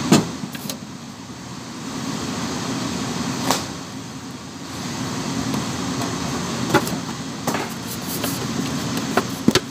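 Steady low kitchen hum with scattered sharp clicks and knocks as a plastic-wrapped bamboo sushi rolling mat is handled and laid down on a plastic cutting board; the loudest knock comes right at the start, and a cluster of clicks follows near the end.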